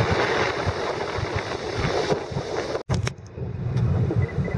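Wind rushing over the microphone with the low rumble of a boat underneath. The sound breaks off abruptly near three seconds in, then returns with less hiss and a stronger low rumble.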